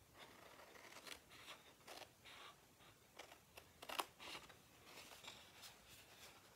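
Small scissors snipping into scored tan cardstock, cutting in along a score line: a run of faint short snips, the sharpest about four seconds in.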